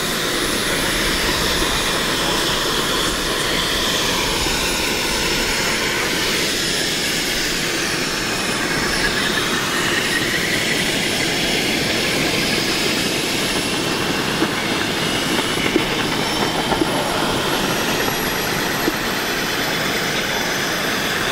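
Turbine-powered radio-controlled model Kaman K-MAX helicopter running close to the ground: a steady turbine whine over the rush of its twin intermeshing rotors, with the pitch rising slightly about nine seconds in.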